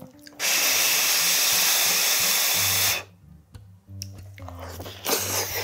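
Fried rice sizzling on a hot pan as it is pressed flat with a wooden spoon: a loud steady hiss for about two and a half seconds that cuts off suddenly, with a shorter sizzle near the end.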